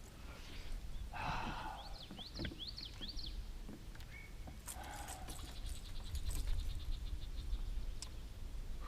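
Small birds chirping: a quick run of rising and falling chirps, a short single note, then a rapid trill, over a low steady rumble.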